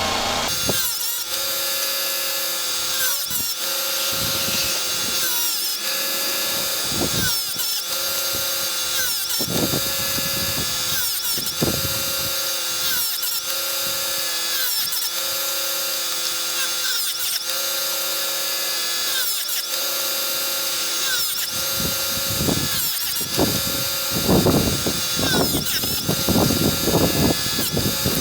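Chicago Electric electric saw-chain sharpener running steadily, its grinding wheel brought down on the chain teeth again and again, grinding the cutters of the second side one after another. Louder rattling knocks come near the end.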